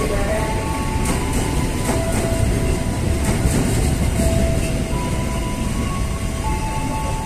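Empty flat freight wagons rolling past at close range: a steady heavy rumble with the wheels clicking over rail joints, with background music underneath.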